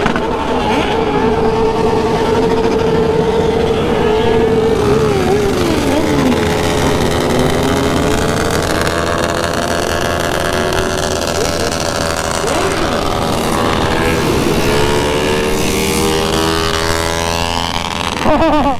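Many motorcycle engines running together in a large group ride. One engine note holds steady, then falls about five seconds in, and several notes rise near the end as the bikes speed up.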